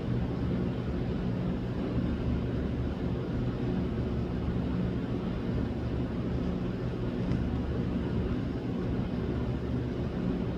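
A steady low mechanical hum, even throughout, with several low droning tones over a rumble.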